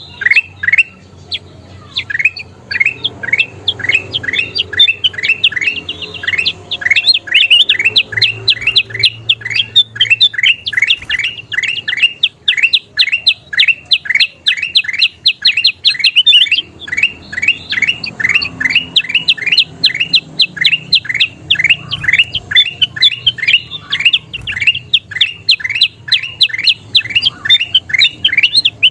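Kutilang emas, a bulbul, calling in a fast, unbroken series of short downward-sweeping chirps, about four a second.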